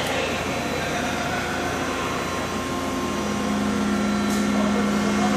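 Steady machinery hum with a low drone, whose deepest note gets louder about three seconds in.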